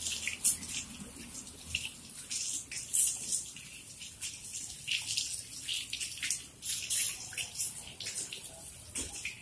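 Water from a garden hose pouring over a wet dog's coat and splashing onto a tiled floor, in uneven splashes.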